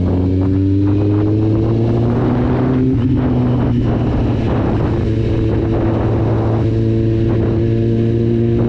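Kawasaki Z750 inline-four engine running through an Akrapovic exhaust with the dB killer removed, pulling steadily under way, its note slowly rising in pitch.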